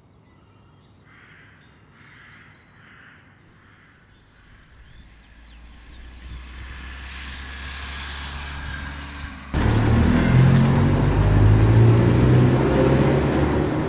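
A few faint bird chirps, then a rising rush of a car approaching. About two-thirds of the way through it cuts suddenly to a car engine and tyres running loud at road speed.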